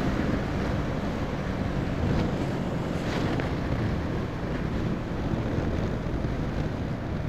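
Yamaha R15 V4's 155 cc single-cylinder engine running steadily while the bike rides at speed, with wind rushing over the microphone.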